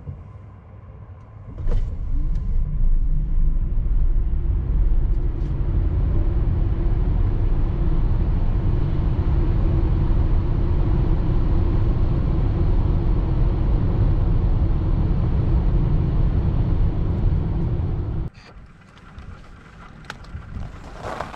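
Volkswagen ID.Buzz electric van driving: a steady low rumble that starts suddenly about two seconds in, holds level, and cuts off abruptly near the end.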